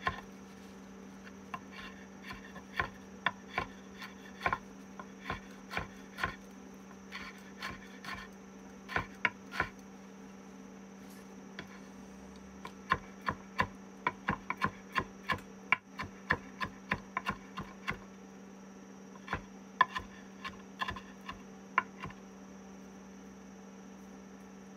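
Chef's knife chopping cilantro on a wooden cutting board: irregular runs of sharp knocks, pausing briefly a couple of times, over a steady low hum.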